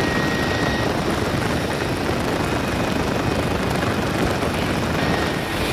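Rescue helicopter in forward flight, its engine and rotor making a steady, even drone with a faint high whine over it.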